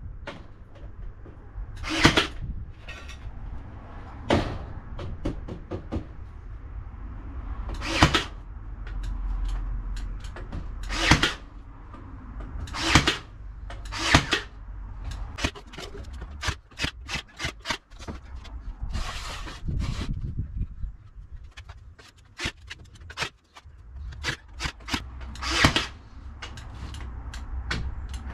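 Ryobi AirStrike cordless nailer driving nails into wooden battens: about a dozen sharp shots, irregularly spaced one to several seconds apart, with quieter knocks of the timber being handled between them.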